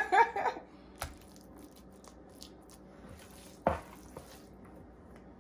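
Spoonfuls of moist cornbread dressing being scooped and dropped into a glass baking dish: faint squishing, a light tap about a second in and a louder thump a little before four seconds.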